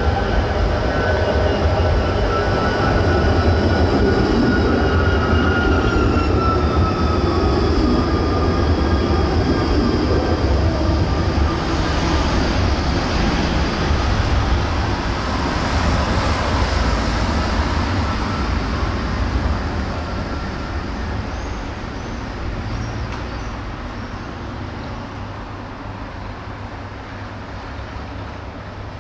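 A vehicle passing in the street, with a heavy low rumble and a high whine that slides slowly down in pitch, the whole sound dying away over the last ten seconds.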